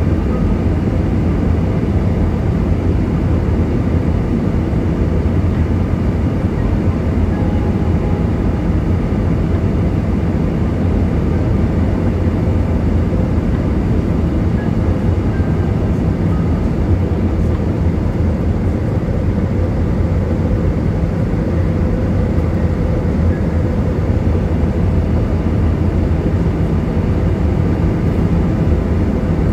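Steady drone of a jet airliner's engines and rushing air, heard inside the cabin from a window seat over the wing in flight. The noise is heaviest in the low range and does not change.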